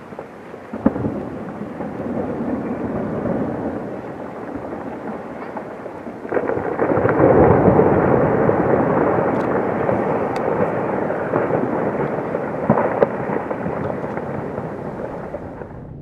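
Rockfall off a granite cliff: a continuous rumble of breaking, falling rock that swells sharply about six seconds in and then slowly fades, with a sharp crack of impact about a second in and another near the end.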